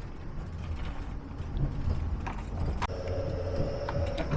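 Inside a vehicle cabin on the road: a steady low engine and road rumble with light mechanical ticks and clicks. A thin steady tone joins about three seconds in.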